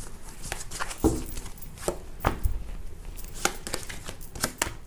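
A deck of tarot cards being shuffled by hand: irregular sharp clicks and snaps of the cards, with a couple of soft low thumps.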